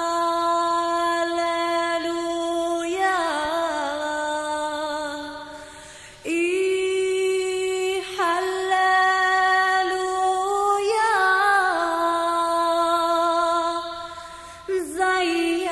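A woman singing a slow Assyrian hymn in long held notes with vibrato. Each phrase fades out, about six seconds in and again near the end, before the next phrase starts.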